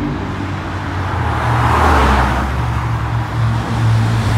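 Road traffic: a low, steady car engine drone, with a car passing by about two seconds in, its engine and tyre noise swelling and fading.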